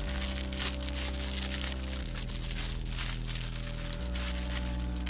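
Clear plastic bag of roasted rice bran bait crinkling as it is opened and poured out, in short crackly strokes. Under it runs background music whose low chord changes about every two seconds.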